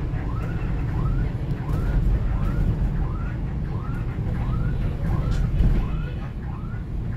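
Vehicle running, a steady low rumble as heard from on board. Over it a short rising chirp repeats evenly about one and a half times a second.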